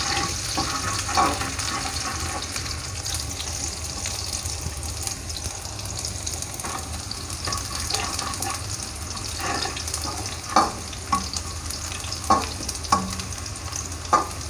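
Sliced shallots and garlic sizzling in hot oil in a wok as they are sautéed until fragrant, with a metal spatula stirring and scraping the pan. Several sharper spatula knocks against the wok come in the last few seconds.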